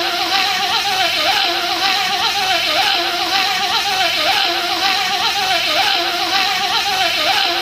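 A man's voice imitating a bee: a steady, wavering nasal buzz that repeats the same pattern about once a second, as if looped.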